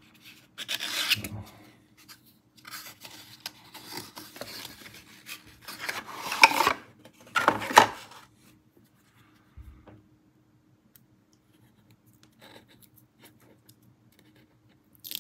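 Cardboard packaging scraping and rubbing as a black inner box is slid out of its snug grey outer box, in several rasping pushes, the loudest about six and eight seconds in. After that come only faint small clicks and taps as the inner box's lid is opened.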